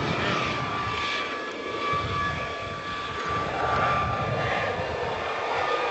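Military turbine helicopter flying overhead: a steady high engine whine over uneven low rotor noise.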